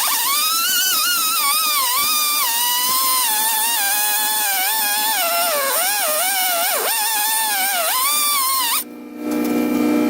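Music: a single wavering, gliding lead tone with many overtones and no beat, cutting off suddenly near the end, where a steady electrical hum takes over.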